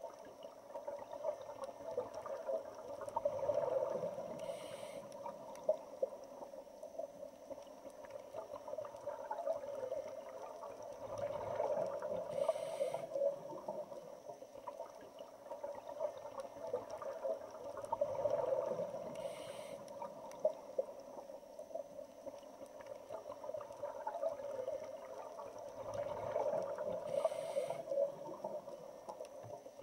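Underwater sound of a scuba diver breathing through a regulator: bubbles gurgle in swells four times, about every seven to eight seconds, each followed by a short hiss.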